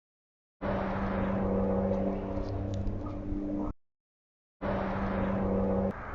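A steady motor hum with a few held tones over a noisy background, heard in two stretches that start and cut off abruptly, with silence in between.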